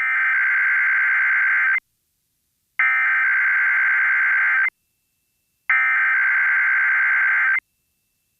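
Emergency Alert System SAME header: three bursts of harsh, buzzy digital data tones, each about two seconds long with about a second of silence between them, marking the start of an EAS test alert.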